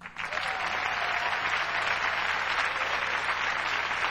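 Studio audience applauding. The clapping starts abruptly and holds steady.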